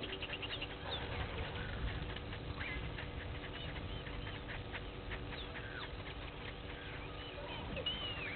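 A blacksmith lapwing bathing in shallow water, a run of small splashes and patter as it dips and flicks water, with short bird chirps and a whistle over it.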